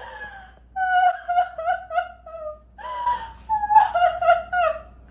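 A woman's acted laughter in two runs of short, rhythmic "ha-ha" pulses, the second run louder, starting about three seconds in.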